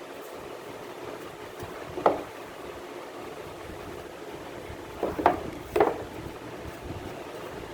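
Steady hiss of background noise, broken by three short knocks: one about two seconds in and two more between five and six seconds in.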